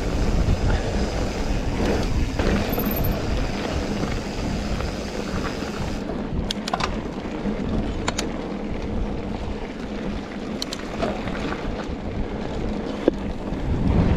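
Wind rushing over an action-camera microphone, with mountain-bike tyres rolling over a pebbly trail while riding. A few sharp clicks and rattles from the bike come from about six seconds in.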